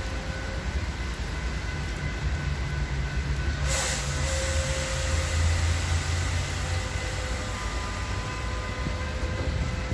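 Metra commuter train hauled by an F59PHI diesel locomotive, running through the station with a steady low rumble and faint steady tones. About four seconds in comes a short burst of hiss.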